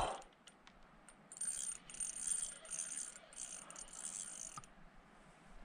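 Ultralight spinning reel being cranked as a hooked trout is reeled in, a faint high whirring in several short spells over about three seconds.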